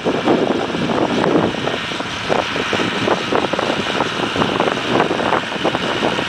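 Massey Ferguson 3085 diesel tractor working under load as it pulls an Amazone Catros disc harrow across dry soil, heard with a rough, gusting wind rush on the microphone over it.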